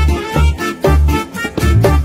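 Upbeat background music with a steady bass beat, about two or three beats a second.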